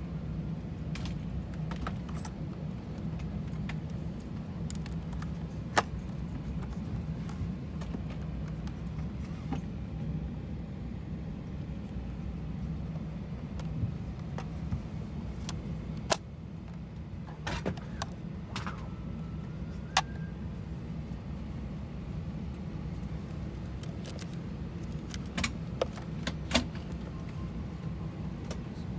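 Plastic clicks and knocks of a seatback tray table being handled, its latch turned and the table folded down, over the steady low hum of an airliner cabin. The sharpest clicks come about 6, 16, 20 and 26 seconds in, with a small cluster near the end.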